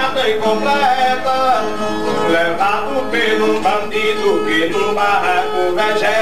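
Brazilian viola strummed and picked in the instrumental interlude between improvised repente stanzas.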